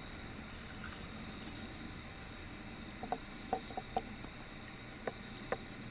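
Steady high-pitched chorus of night insects. A handful of short, light knocks come between about three and five and a half seconds in.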